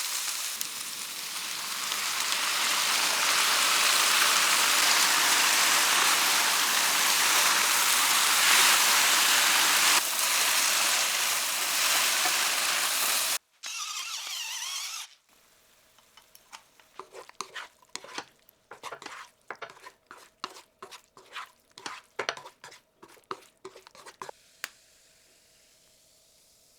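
Eggplant and tofu stir-frying in a pan, with a steady loud sizzle for about thirteen seconds, broken off by a cut to a second short burst of sizzling. After that, much quieter irregular clicks and taps.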